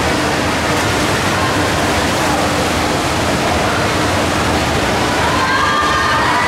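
Steady, loud, echoing wash of indoor swimming-pool noise: swimmers splashing down the lanes in a race, blended with the voices of a crowd of spectators.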